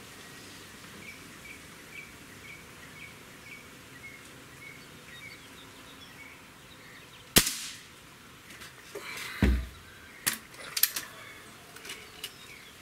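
A single shot from a Walther Parrus .22 spring-piston air rifle about seven seconds in: one sharp crack with a brief ring after it. About two seconds later comes a dull knock, then several sharp clicks as the rifle is handled.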